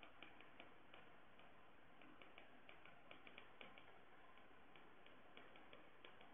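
Faint, irregular light clicks of a stylus tip tapping on a tablet's glass screen while handwriting, over near-silent room tone.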